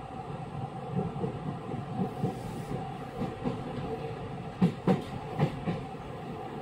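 Osaka Metro 66 series equipment-renewed electric train running on the rails, heard from inside the car: a steady hum with wheels clicking over rail joints, and two pairs of sharp clacks about halfway through as the bogies cross a joint.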